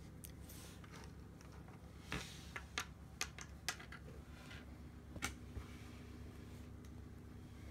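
Small plastic objects being handled on a table: a scatter of about half a dozen sharp light clicks and taps between two and five and a half seconds in, over a low steady hum.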